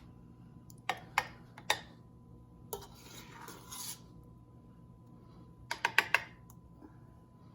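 A metal spoon clinking and scraping against glass jars and the pot as cooked apple jam is ladled into mason jars. There are three sharp clinks about a second in, a short scrape around the middle, and a quick run of clinks near the end.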